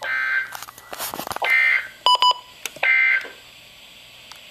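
Emergency Alert System end-of-message data tones: three short two-pitch bursts, about 1.4 s apart. Between the first two comes a patch of crackling clicks, and between the last two come two quick buzzy beeps.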